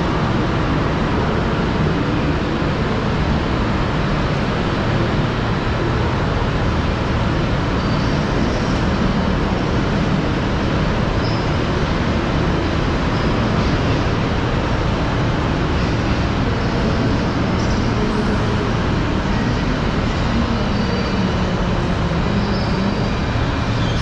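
Steady, continuous vehicle rumble with hiss, with no single event standing out.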